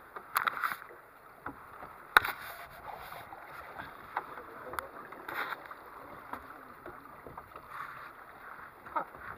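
Fabric rubbing and brushing against the camera's microphone, with several sharp knocks and bumps. The loudest knock comes about two seconds in.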